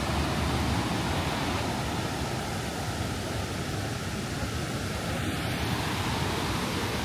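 Steady, even rush of ocean surf and wind, with no breaks or rhythm.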